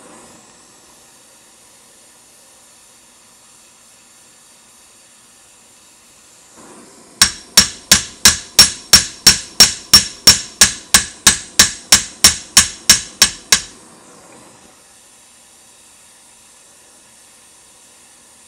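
A hammer striking a red-hot steel rivet in quick, even blows, about three a second for some six seconds, upsetting the hot rivet so it flows down into its hole in the Browning 1919 side plate. Before and after the blows a gas torch hisses softly.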